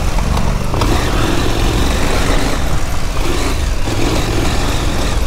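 KTM adventure motorcycle engine running under load as the bike climbs a rough gravel track, heard close from the rider's helmet with wind noise over the microphone and a couple of sharp clicks of stones under the tyres.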